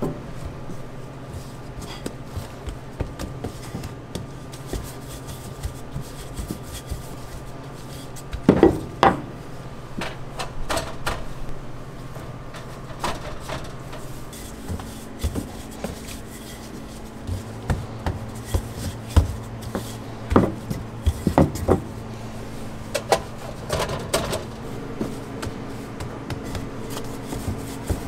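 Bakery prep handling sounds: scattered knocks, taps and rubbing as gloved hands work bread dough against wooden proofing trays, metal loaf tins and a rolling pin. A few sharper knocks stand out, over a steady machine hum.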